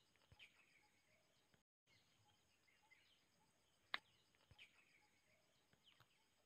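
Near silence with faint, scattered bird chirps and one sharp click about four seconds in.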